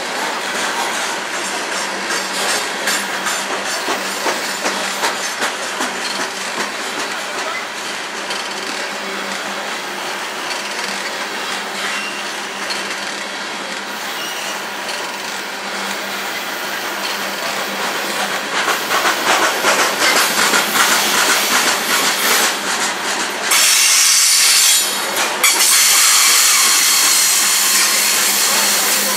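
Freight cars of a Union Pacific coal train rolling past, their steel wheels clicking over the rail joints under a steady rumble. About 23 seconds in, a harsh high-pitched noise comes in suddenly and holds.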